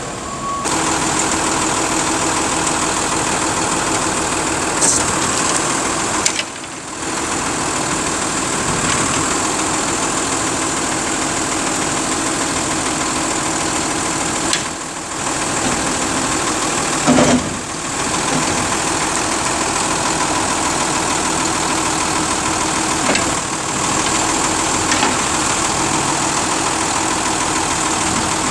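Engine of a 2015 Autocar Xpeditor side-load garbage truck idling steadily.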